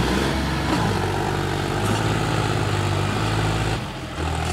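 John Deere 5210 tractor's three-cylinder diesel engine running hard as the tractor rears up onto its rear wheels in a wheelie. The engine sound drops briefly near the end, then comes back loud.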